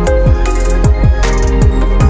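Background music with an electronic beat: deep drum hits that drop in pitch, over sustained held tones.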